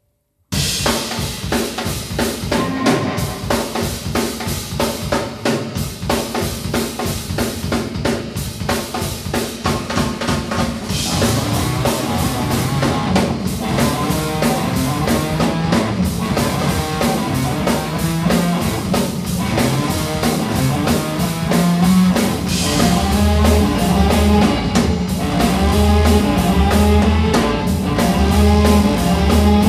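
Live band playing: a busy drum kit driving the rhythm with bass guitar and guitar. The music starts abruptly just after the beginning, and about three-quarters of the way through a heavy, pulsing bass line comes in and the music gets louder.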